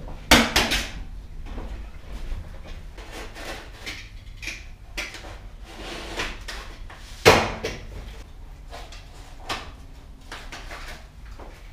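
Footsteps, scuffs and clatter on a loose, not-yet-fastened OSB subfloor inside a box truck's cargo box, with two sharp wooden knocks, one just after the start and another about seven seconds in.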